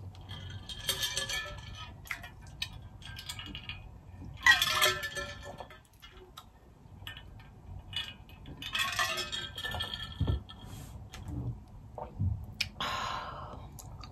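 An insulated stainless-steel water bottle being picked up, drunk from and set down, heard as four short spells of clinks and rattles with a few sharp clicks between.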